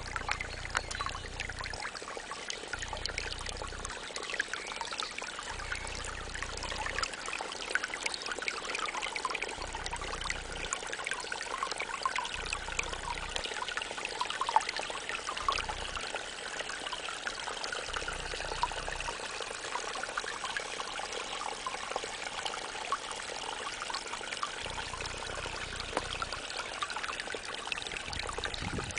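Small indoor fountain's water trickling and splashing steadily, with many small drips.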